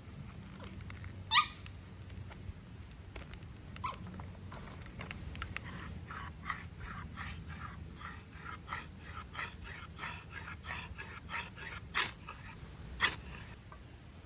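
Animal calls: a sharp rising call, then a run of short calls at a few a second, and two louder calls near the end, over a steady low background hum.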